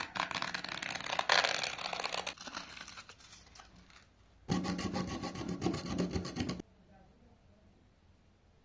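Rapid, rough scraping strokes in two bouts: the first fades out after about four seconds, and the second, heavier one starts about four and a half seconds in and cuts off suddenly two seconds later.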